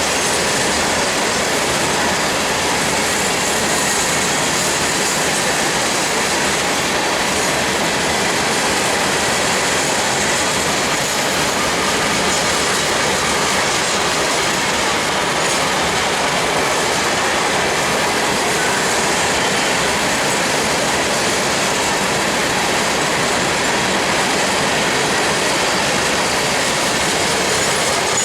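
Long CSX freight train's cars rolling past: a steady, unbroken noise of steel wheels on rail.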